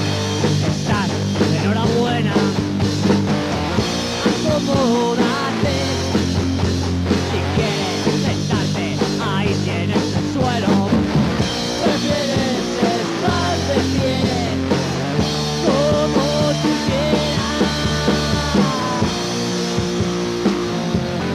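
Punk rock song played by a band on electric guitar, bass and drums, loud and unbroken throughout.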